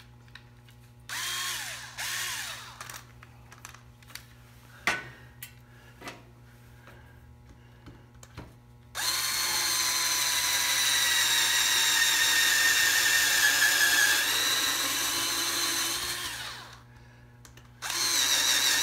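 Cordless drill/driver driving a wood screw up through a wooden plaque into a wooden model: two short spurts, then a long run of about seven seconds whose whine drops slightly in pitch before it winds down, and another spurt near the end. A few sharp knocks come in between the runs.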